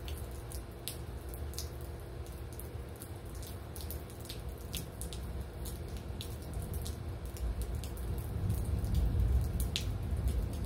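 Rain dripping, with scattered drops tapping close by at irregular intervals over a faint steady hum. A low rumble swells over the last few seconds.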